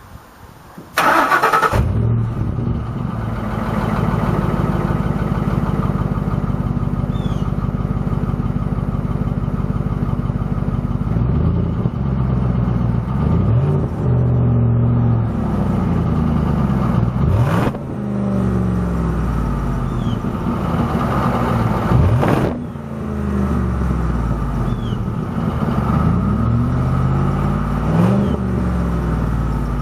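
2004 Ford F-150 FX4's exhaust through its rusted-out stock muffler, which has rust holes in it. The engine is cranked and catches about two seconds in, then idles steadily. From about a third of the way through it is revved up and down several times.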